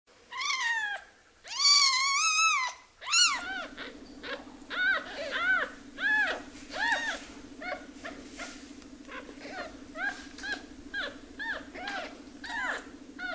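Newborn kittens, less than a week old, crying: a few long, loud, wavering cries, then from about three seconds in a quick run of shorter, quieter mews about twice a second.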